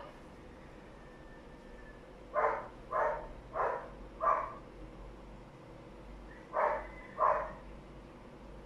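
A dog barking: four quick barks a couple of seconds in, then two more near the end.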